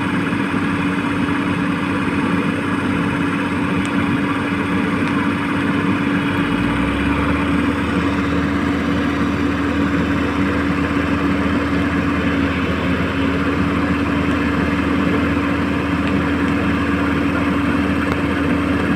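Radio-controlled model excavator running steadily, its motor and hydraulic pump giving a constant hum; a deeper hum joins about six seconds in.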